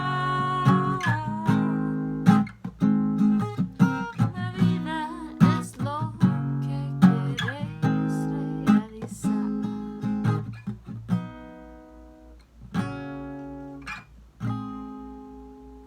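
Acoustic guitar strummed in chords, with a held sung note ending about a second and a half in. The strumming then grows softer and thins out to a few last strums near the end, as the song closes.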